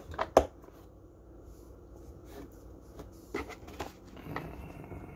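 Hinged plastic lids of a DeWalt ToughSystem bit organizer being closed, with one sharp snap about half a second in. A few lighter plastic clicks and handling rustle follow a few seconds later.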